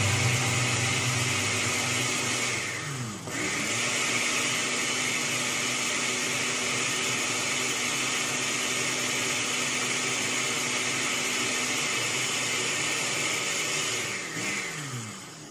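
Countertop blender blending soursop pulp into a milk and condensed-milk ice-cream base, its motor running steadily. The motor briefly drops in pitch and picks back up about three seconds in, then winds down with falling pitch near the end.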